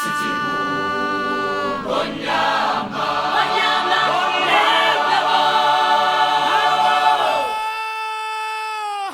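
A choir singing a sustained a cappella chord; the voices swell into a fuller, moving passage for several seconds, then thin to one long held note near the end.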